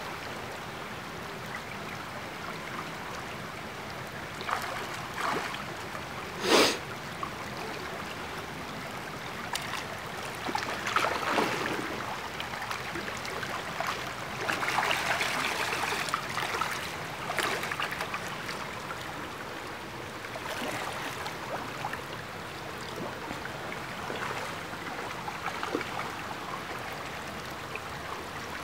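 Shallow gravel-bed creek running steadily, with a few short, louder splashes from the water; the sharpest comes about six and a half seconds in.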